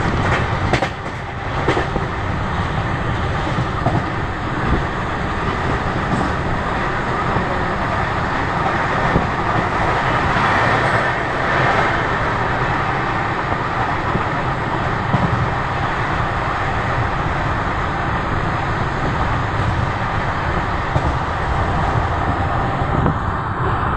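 Passenger train running at speed, heard through an open window: a steady rush and rumble of wheels on rails, with a few sharp clicks in the first two seconds.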